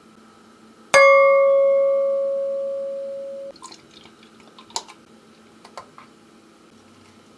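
A single bright ringing ding about a second in, fading slowly and then cut off abruptly, followed by faint clicks and the soft splash of beer being poured into a glass chalice.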